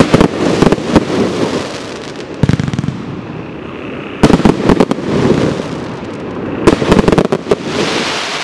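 Geisha 'Event Thunder and Roses' 120-shot firework compound cake firing in volleys: four clusters of rapid sharp bangs about two seconds apart, with crackling and fizzing between them.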